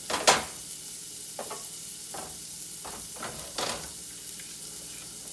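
Breakfast sausage sizzling in a frying pan, with a utensil scraping and knocking against the pan about five times, the sharpest knock right at the start.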